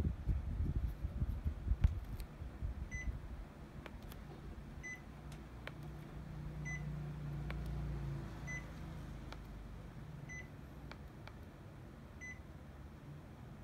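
Panasonic Envio split air conditioner's indoor unit giving six short high beeps, one about every two seconds, each acknowledging a command from the remote. Knocks and clicks fill the first two seconds.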